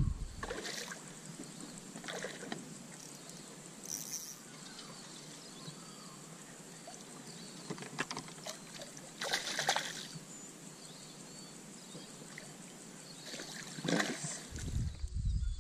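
Water splashing and trickling as a hooked fish is played at the surface beside a kayak and scooped into a landing net, in several short separate splashes over a low background hiss.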